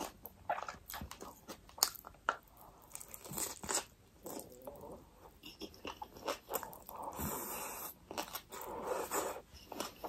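Close-up mouth sounds of eating spicy ramen noodles with pork: wet chewing with many small clicks, and noodles being sucked in about six seconds in.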